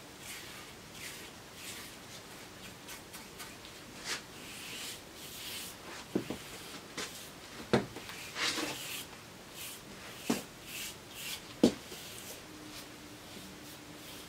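Paintbrush laying oil-based spar varnish onto wooden handles: soft, irregular swishing strokes, with a few light knocks of brush or wood at about six, eight and twelve seconds in.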